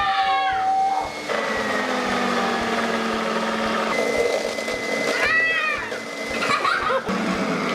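Juicing machine running steadily while lemons are juiced. Twice, at the start and about five seconds in, a short high squeal rises and falls over it.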